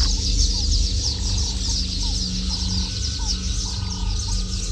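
Wild birds calling: a dense run of rapid, high, falling chirps with shorter lower calls repeating irregularly, over a steady low rumble.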